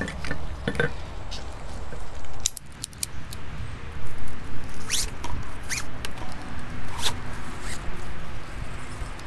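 Orange ratchet tie-down strap being worked by hand to strap down a beehive. The webbing rasps in quick zips as it is pulled through the ratchet, with scattered clicks from the ratchet mechanism.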